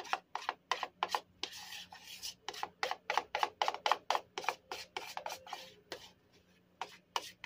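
A utensil scraping melted chocolate out of a bowl in quick, repeated strokes, about three to four a second; the scraping stops about six seconds in.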